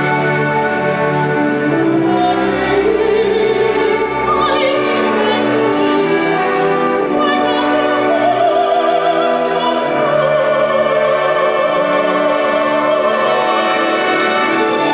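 Soprano singing in operatic style with a live orchestra, holding long notes with a wide vibrato, rising to a higher held note about ten seconds in.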